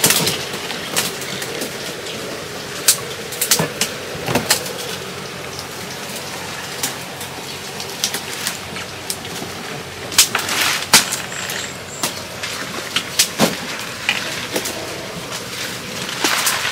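Water hyacinth leaves and dry twigs rustling and crackling as a small boat is pushed in among them and hands work through the plants, with irregular sharp snaps.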